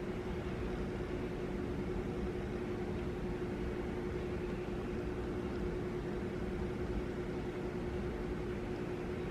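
A steady machine hum with one constant tone over an even background noise, unchanging throughout.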